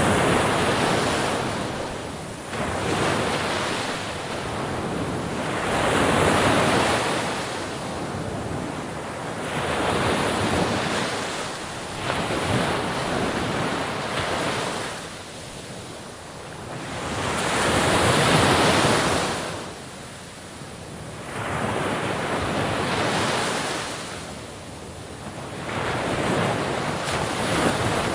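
Ocean waves breaking on the shore, the surf swelling and falling back in slow surges every few seconds, one wave louder than the rest about two-thirds of the way through.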